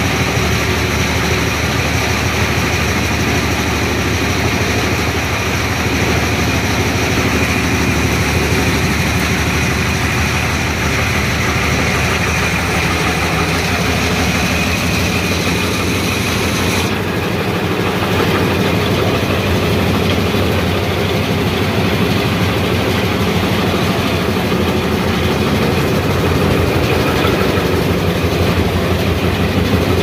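Electric-motor, belt-driven chaff cutter running steadily under load, its blades chopping green fodder as it is fed in and its blower throwing the cut pieces out. A little past halfway the sound loses some of its high hiss.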